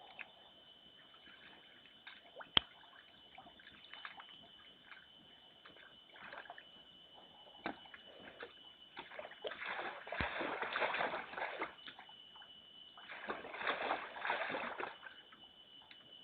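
Bear sloshing and splashing in a water-filled food hole, in two spells of a couple of seconds each in the second half, after smaller scattered splashes. One sharp click comes a few seconds in.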